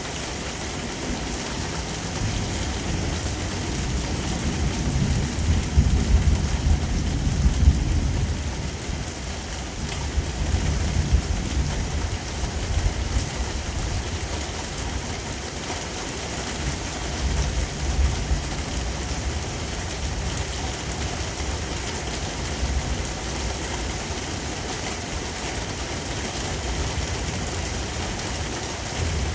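Heavy rain falling steadily, with low thunder rumbling under it: the rumble builds from about two seconds in to a peak in the first third, and comes again more briefly past the halfway point.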